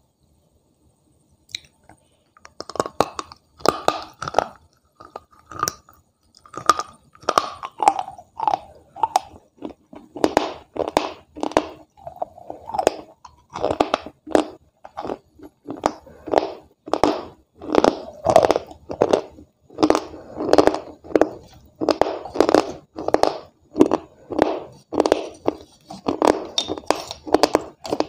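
Crunching and chewing of a piece of white clay eaten raw: close, sharp crunches about once or twice a second, starting about two seconds in and carrying on steadily.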